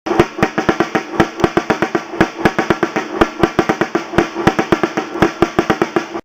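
Fast drumming, about seven uneven strokes a second over a steady ringing tone, starting and stopping abruptly.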